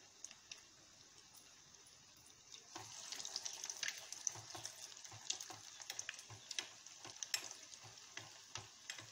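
Breadcrumb-coated egg bread rolls deep-frying in hot oil in a steel kadai. The oil hisses faintly at first, then about three seconds in it turns louder, with dense crackling and popping, as a second roll goes into the oil.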